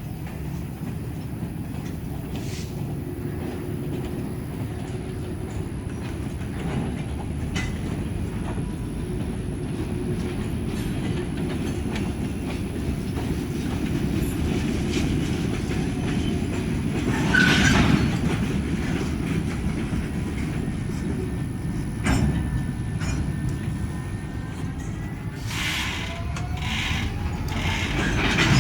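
Diesel locomotives and freight cars rolling by with a steady low rumble and scattered clicks of wheels over rail joints. Short metallic wheel squeals come about two-thirds of the way through and again near the end.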